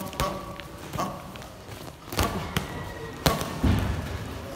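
Heavyweight boxing bout at close range: about six sharp, uneven thuds of gloved punches landing and feet striking the ring canvas.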